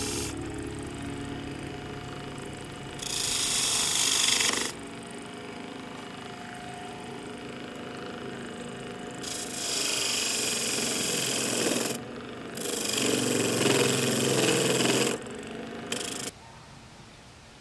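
A wood lathe running with a steady hum while a hand-held turning tool cuts into the spinning wooden honey-dipper spindle, giving four hissing, scraping cuts of about one to three seconds each that start and stop sharply.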